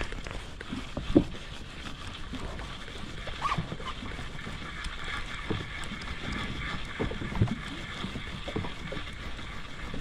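Open-air sound aboard a small boat drifting at sea: steady wind on the microphone and water against the hull, with a few light knocks, the clearest about a second in.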